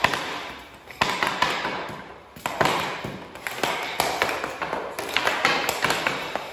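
Hockey sticks cracking and tapping against pucks or balls on a concrete floor, with shots hitting the net: a run of sharp hits about one a second, each ringing on in a large, echoey garage.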